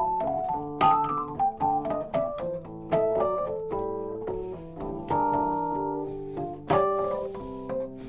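A vintage keyboard played through a Boss Spectrum SP-1 pedal: a quick run of notes and chords with sharp attacks, easing into longer held chords near the end.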